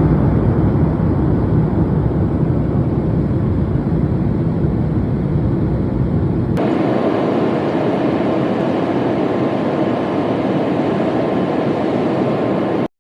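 Steady vehicle noise, a continuous rumble; about halfway through it switches abruptly to a thinner, brighter noise without the deep rumble, then stops suddenly just before the end.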